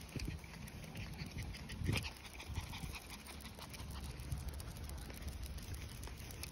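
Chihuahuas panting as they walk on leashes, with a brief louder sound about two seconds in.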